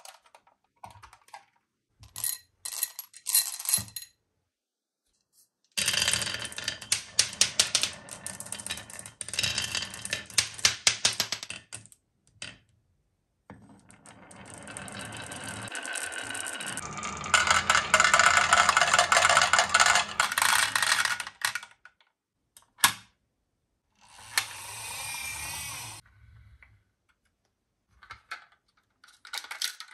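Many small marbles rolling along a carved wooden marble-run track and clattering against each other and the wood, in several runs of rapid clicking; one run starts with a rising rolling sound and ends in a loud, dense clatter.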